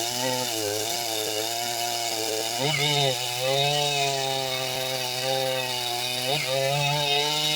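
Large two-stroke chainsaw running at high revs while cutting, its pitch sagging briefly twice under load and then climbing back.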